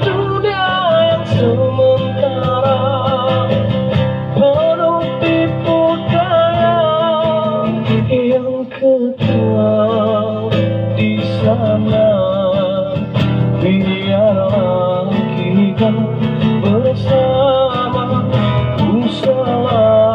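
A man singing into a microphone while strumming an amplified acoustic guitar, as a live busker performance, with a short dip about eight and a half seconds in.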